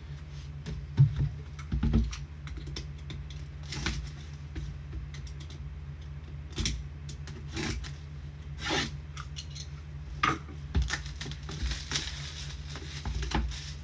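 Typing on a computer keyboard: irregular runs of key clicks with a few heavier strokes, over a steady low hum.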